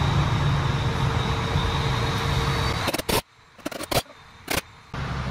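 Steady machine noise in a shop, a low hum with a faint high whine, that cuts out suddenly about three seconds in. A few sharp metal clinks follow as the transmission's gears are handled.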